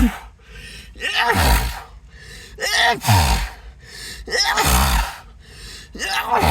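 A person sneezing over and over in a rapid fit: four loud sneezes about a second and a half apart. Each begins with a short gasping intake and a falling-pitched cry, then bursts into a noisy blast.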